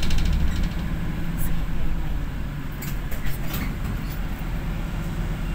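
Steady low rumble of a bus's engine and road noise heard from inside the passenger cabin, with a few short clicks or rattles about three seconds in.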